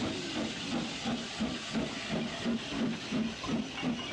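Saddle-tank steam locomotive working a train past at close range: regular exhaust chuffs about two and a half a second over a steady hiss of steam.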